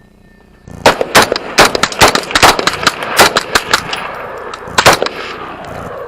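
A rapid, irregular volley of gunfire from several guns firing at once, with shots overlapping. It starts about a second in and stops a little before the end, with an echo dying away.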